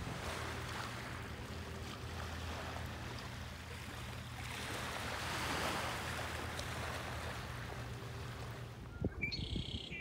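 Small waves washing onto a gravel beach, swelling midway, over a steady low hum. Near the end a red-winged blackbird gives a short, buzzy call.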